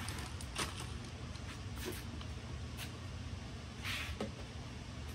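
A few brief clicks and knocks from handling the electric smoker's wood chip loader, over a steady low hum. A short scrape about four seconds in is the loudest sound.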